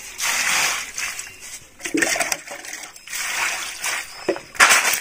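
Water poured from a plastic jug splashing over snails in a plastic colander and draining onto concrete, in a few separate pours as the snails are rinsed by hand.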